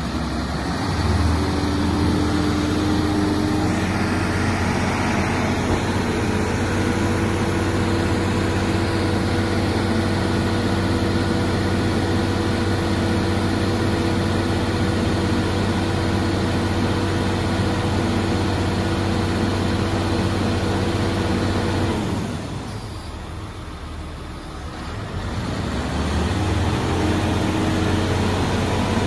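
Truck crane's diesel engine running at raised revs to drive the hydraulics while the telescopic boom extends, a steady hum with several held tones. The revs drop back about 22 seconds in and pick up again a few seconds later.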